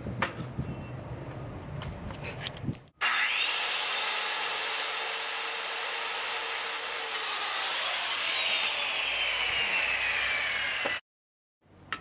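Handheld circular saw whining up to speed and cutting through a wooden board, its pitch slowly dropping as the cut goes on. It starts about three seconds in and stops abruptly near the end.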